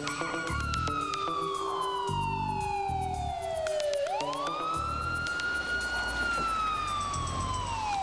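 Ambulance siren wailing: a slow, falling sweep of about four seconds, then a quick climb back up, a hold, and another long fall near the end.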